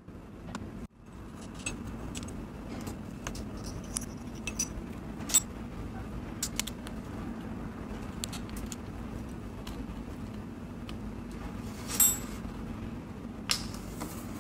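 Small clicks and clinks of a miniature metal baking tin and tiny utensils being handled, over a steady low hum. Two louder knocks stand out, about five seconds and about twelve seconds in.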